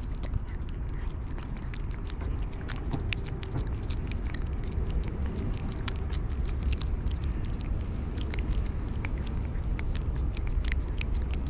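Orange-and-white cat licking a lickable paste treat from a squeeze tube held at its mouth: a run of quick, wet tongue clicks and smacks.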